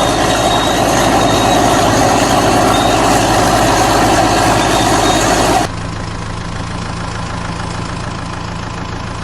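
A steady engine-like idling drone that cuts abruptly a little past halfway to a quieter, steadier engine hum.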